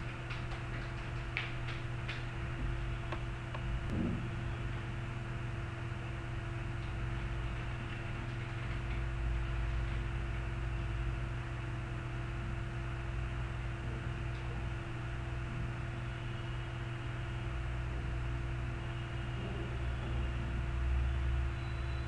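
Steady low electrical hum under a constant hiss, with a few faint clicks in the first two seconds.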